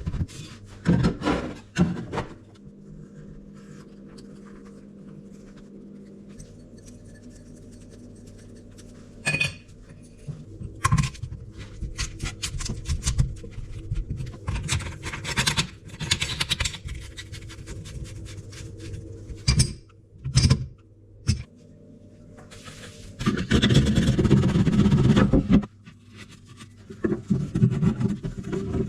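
Plumbing hand tools and fittings scraping, rubbing and clicking, with several sharp knocks. A louder rushing noise lasts about two seconds, about three quarters of the way in.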